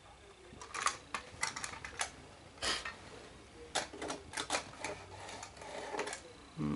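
Irregular clicking and clattering of small metal and plastic Lionel toy train parts being handled and pushed together by hand.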